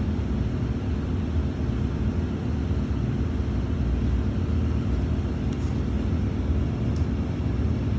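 Steady low background rumble at an even level, with no breaks or distinct events.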